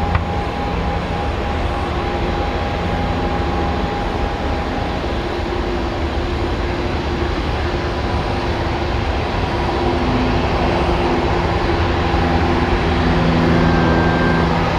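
Boeing 767-300 jet engines running steadily after landing: a continuous rumble with a few steady whining tones, growing slightly louder near the end.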